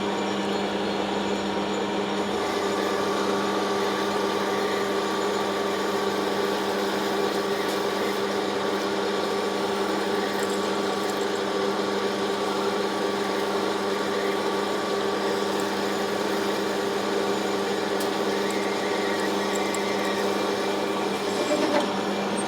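Metal lathe running at 460 RPM, its tool tip taking a 2 mm deep cut along a 4140 steel shaft: a steady mechanical hum with a higher tone that joins about two seconds in and fades near the end.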